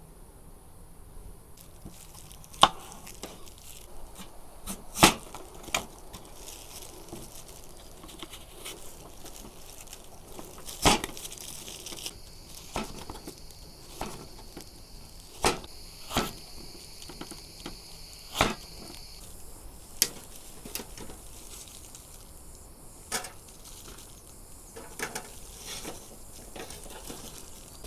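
About a dozen sharp knocks and snaps at irregular intervals of one to three seconds, over a faint steady high-pitched hiss of insects.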